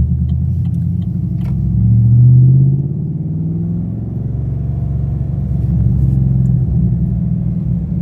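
Holden VF Commodore SSV Redline's 6.2-litre V8 heard from inside the cabin while driving, a deep rumble that swells and rises in pitch under acceleration about two seconds in, then eases back to a steady drone.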